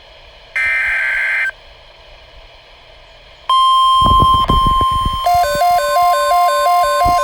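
NOAA Weather Radio Emergency Alert System sequence: a one-second burst of SAME header data tones, a pause of about two seconds, then the steady 1050 Hz warning alarm tone starts about three and a half seconds in. A few low thumps follow. From about five seconds in, a rapid two-note electronic beeping plays over the tone.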